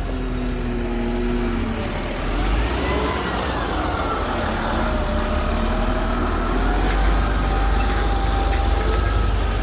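Heavy earth-moving machine at work: a steady low engine rumble with whining tones that slide up and down in pitch, the biggest rise and fall about three seconds in.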